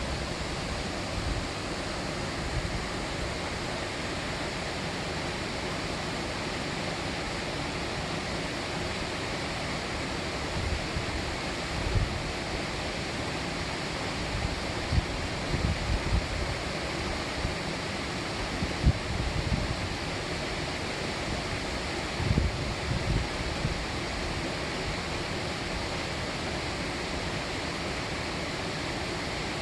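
Mountain stream water rushing steadily. Several brief low rumbles of wind on the microphone come midway.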